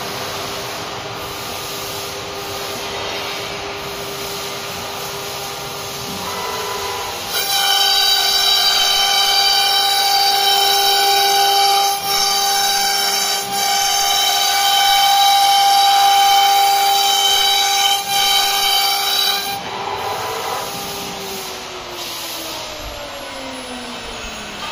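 Two CNC router spindles whining steadily at speed. From about seven seconds in, for about twelve seconds, the sound is much louder, with a higher tone and cutting noise, as the bits engrave letters into a board. It then drops back to the plain whine, which falls in pitch near the end as a spindle winds down.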